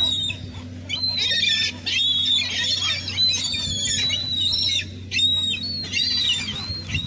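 A crowd of gulls calling over one another, with dense, overlapping high calls coming in near-continuous runs. A steady low hum lies underneath.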